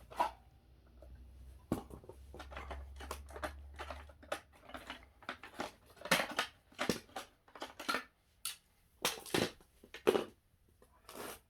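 Plastic housing of a Gtech AirRam MK2 cordless vacuum handled and pulled apart by hand after its screws are out: irregular clicks, knocks and scrapes of plastic parts, coming thicker and louder in the second half.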